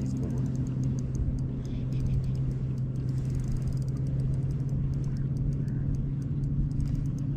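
Steady low electric hum of a bass boat's bow-mounted trolling motor holding the boat in place, with a low rumble of wind and water underneath and faint scattered ticks.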